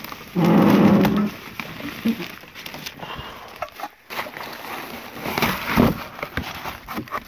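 Cardboard boxes and their contents being handled and rummaged through: rustling, scraping and light knocks throughout, with one loud low drawn-out sound about half a second in that lasts about a second.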